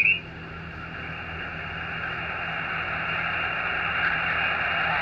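Xiegu X6100 HF transceiver's receiver giving out band noise on 40-metre lower sideband as the dial is tuned between stations: a steady hiss cut off sharply above by the narrow sideband filter, slowly growing louder.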